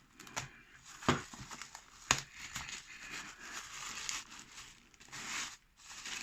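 Packaging crinkling and tearing as a gift parcel is unwrapped by hand, in irregular rustles with a couple of sharp snaps about one and two seconds in.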